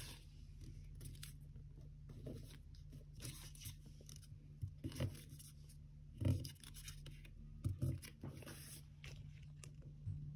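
A sheet of 80 gsm origami paper being folded by hand: faint rustles, crackles and scrapes as it slides on the table and a crease is pressed down, with a few louder crinkles about five, six and eight seconds in.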